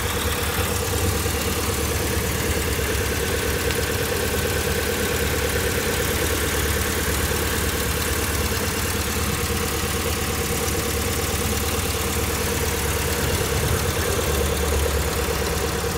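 Car engine idling steadily, with no knocking heard from the steering. The worn tie rod that caused a rattling 'çat çat çat' clunk when the wheel was turned has just been replaced.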